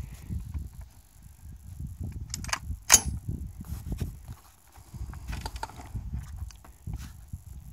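Wind buffeting the microphone in gusts, with scattered small handling clicks and one sharp crack about three seconds in.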